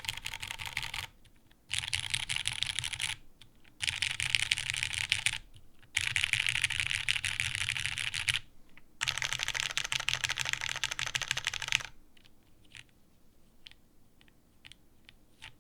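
Custom mechanical keyboard with lubed Cherry Hyperglide Brown switches and GMK keycaps, keys pressed in rapid runs along each row: five dense bursts of keystrokes about half a second apart. From about twelve seconds in only a few scattered faint clicks follow, as the board is pressed to show its flex.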